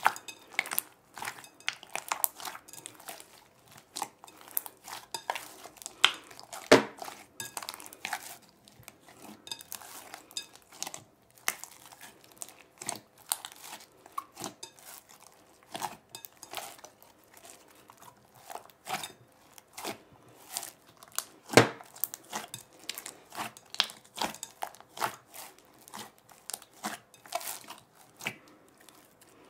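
Hands kneading a large batch of Elmer's school-glue slime in a glass bowl: irregular sticky clicks, squelches and snaps as the slime is stretched, folded and pressed. Two louder pops stand out, about 7 s and 22 s in.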